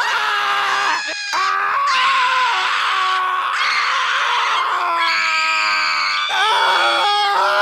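Children screaming, high voices overlapping and continuing with pitch that bends up and down. There is a brief break about a second in.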